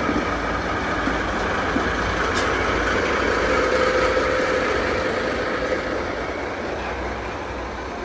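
JNR DD51 diesel-hydraulic locomotive's twin diesel engines growling under power as it pulls away and passes close by. The sound fades over the last few seconds as the locomotive moves on and the passenger coaches roll past.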